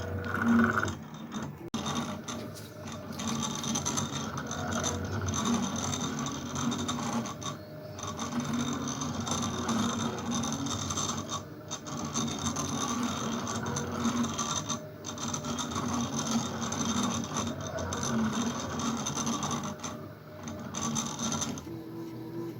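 CNC table running a job, its stepper-driven ball-screw axes moving continuously with a whining tone that shifts in pitch as the axes change speed and direction, with a few brief pauses between moves.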